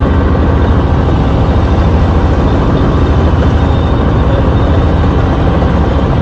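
Helicopter flying in close overhead, its rotor and engine loud and steady.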